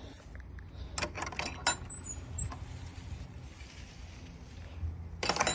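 Clicks and rattles of a wooden garden gate being opened and passed through, with a few short high squeaks about two seconds in.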